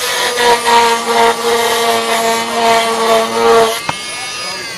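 FEIN MultiMaster oscillating multi-tool with a segment saw blade cutting into tile: a steady motor whine over a grinding rasp that swells and eases as the blade bites. A sharp click comes near the end, after which the tool runs lighter and starts to wind down.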